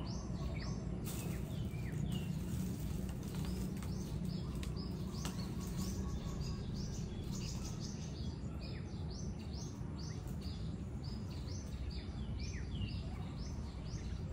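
Birds chirping in a garden: many short, high calls repeated two or three times a second, over a steady low background rumble.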